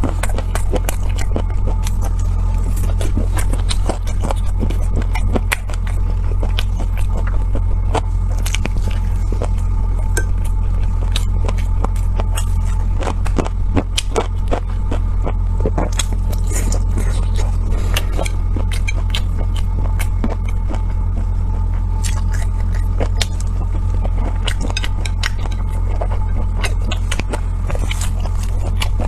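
A steady low rumble with many small clicks and taps over it.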